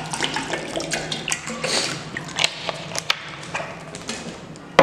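Water poured from a plastic bottle into a stainless steel bowl, splashing and trickling, then tapering off into scattered drips and small ticks. A single sharp knock comes right at the end.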